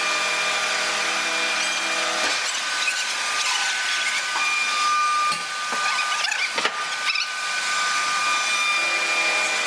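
Open-die forging press running steadily while working a red-hot ring on a mandrel, a machine whine and hiss with several steady tones. A lower hum drops out about two seconds in and returns near the end, with a few faint knocks in between.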